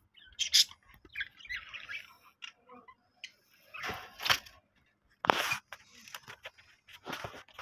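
Budgerigars giving short, scratchy chirps and squawks at irregular intervals, mixed with a few louder knocks and rattles.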